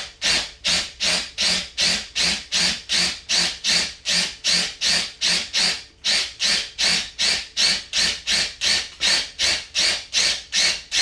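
Power drill boring into the shell of a coconut at one of its eyes, a harsh grinding in short, even pulses about three times a second.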